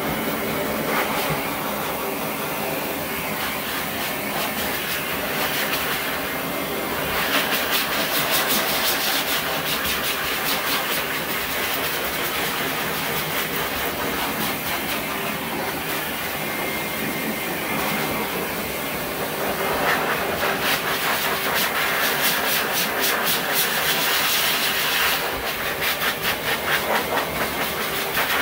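Dog grooming blow dryer running steadily, a loud rush of air with louder, fluttering stretches about a third of the way in and again near the end.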